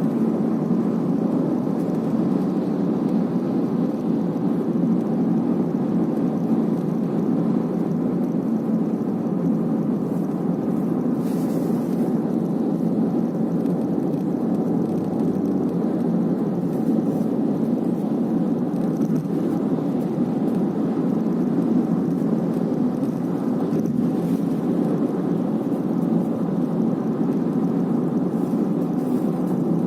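Steady road and running noise heard inside a moving Honda City's cabin, with a few faint, brief clicks or creaks now and then. The owner is recording an abnormal noise that comes from near the B-pillar.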